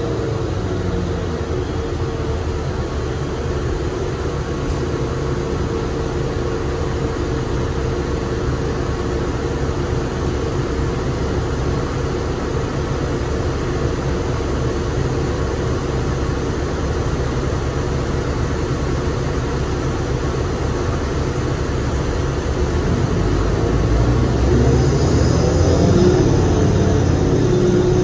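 Interior noise of a 2007 New Flyer D35LFR transit bus under way: its Cummins ISL diesel and Allison B400R automatic transmission running, with road noise and a steady hum. It grows louder near the end.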